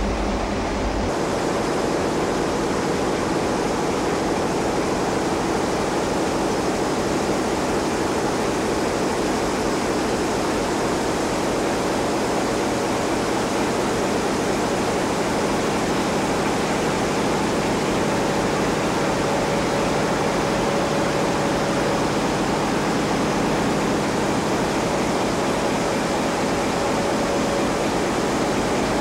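Loud, steady machinery din of a ship's engine room, with pumps and motors running. The deep rumble drops away about a second in, and a steady tone stands out from the noise twice in the second half.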